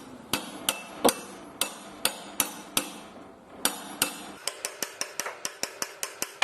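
Hammer striking out the noisy old air-conditioning compressor clutch bearing: sharp metal strikes with a short ring, about two or three a second, that quicken after about four seconds into lighter taps about four a second.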